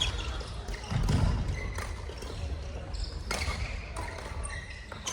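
Sharp knocks of a racket match in a sports hall, half a dozen at irregular intervals: racket strikes and footfalls, with brief shoe squeaks on the court floor, echoing in the hall.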